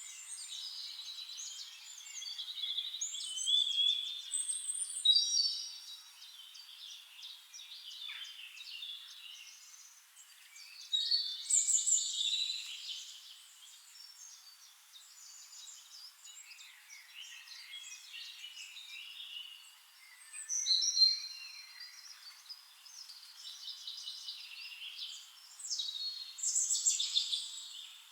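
Forest songbirds chirping and singing, several voices overlapping, with louder bursts of song every few seconds.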